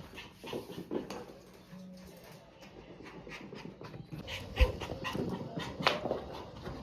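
Toy poodle panting in quick short breaths, with a sharp knock about halfway through and another a little after.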